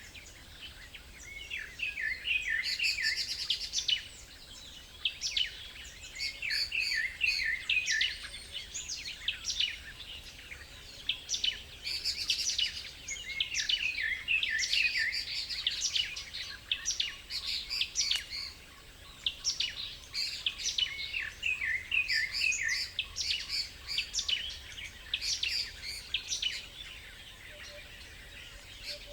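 Several small songbirds chirping and singing, with quick runs of high notes overlapping one another and brief lulls between them.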